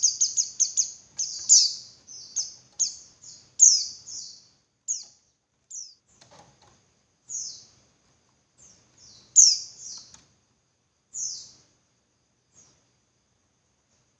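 Female white-eye (pleci) calling: short, high chirps, a quick run of them in the first second and then single chirps or pairs spaced a second or so apart, thinning out near the end. It is the female's call to males, used as a lure to set male white-eyes singing.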